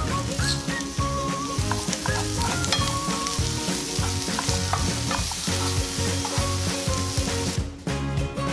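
Sliced carrots and halved grape tomatoes sizzling in a nonstick frying pan and being stirred with a wooden spoon, over background music. The frying stops near the end, leaving only the music.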